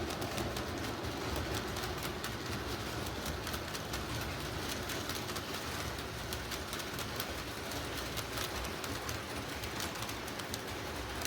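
O gauge model diesel train running on track: a steady low rumble from the locomotive's sound system, with light irregular clicking of wheels over the rails.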